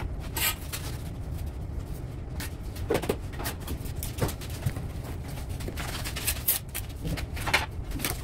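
Scattered knocks and scrapes of a mortar bucket being carried and handled on a tiling job, the sharpest knock near the end as the bucket is set down on the mortar bed, over a steady low hum.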